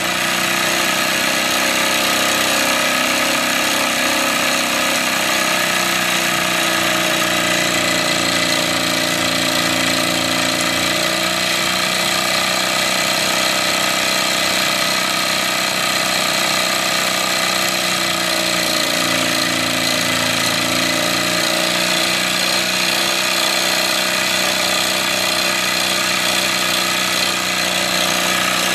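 Wilesco D24 model steam engine running steadily, belt-driving a small stepper-motor generator: a continuous mechanical running and rattling with a whine that drifts slightly up and down in pitch. The exhaust is not chuffing.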